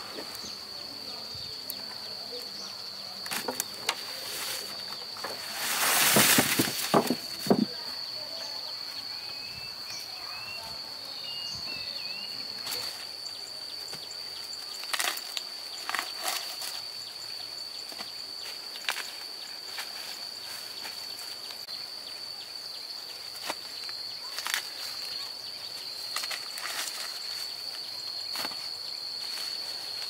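A steady high-pitched insect drone with intermittent rustling and snapping of dry corn husks and stalks as ears of corn are broken off by hand. The loudest burst of rustling comes about six seconds in.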